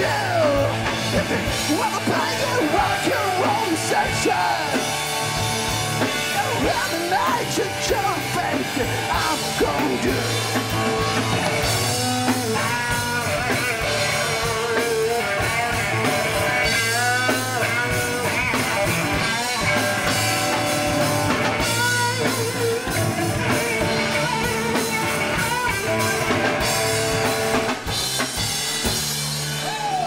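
Live rock band playing: drum kit, electric guitars and bass.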